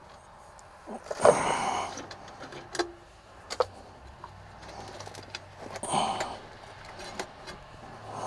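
A man breathing out heavily twice, close to the microphone, as he strains at work, with a few small sharp clicks from hand tools in between.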